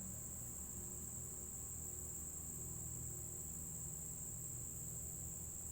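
Steady chorus of crickets, a constant high-pitched trill that does not change, with a faint low hum underneath.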